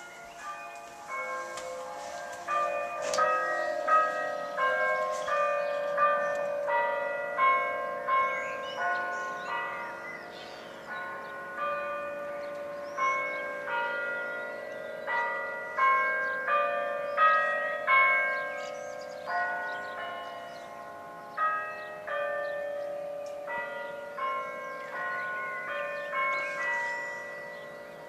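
Several church bells of different pitches ringing together from a bell tower, struck in a quick, irregular sequence, each strike ringing on over the next.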